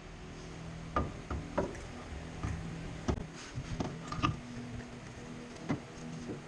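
Tools and car parts knocking and clinking at irregular intervals during work on a front lower arm, over a steady low hum.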